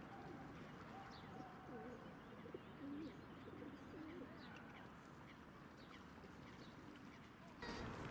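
Faint birdsong outdoors: small birds chirping, with a few low, wavering coo-like calls in the first half. The background gets louder near the end.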